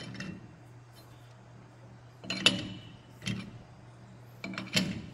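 Sharp metal clinks and knocks of a chuck key working the jaws of a four-jaw lathe chuck while the part is trued, about four separate strikes, the loudest about two and a half seconds in, over a faint steady low hum.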